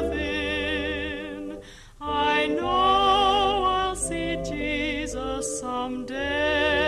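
Music: a gospel song recording with voices holding long notes with vibrato over a low sustained bass, with a brief break about two seconds in.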